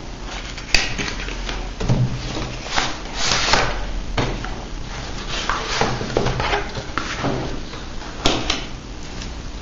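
Cardboard packaging handled by hand: a white inner cardboard box sliding out of its printed sleeve box and its flap lid being opened, with scraping and rustling and a few sharp clicks.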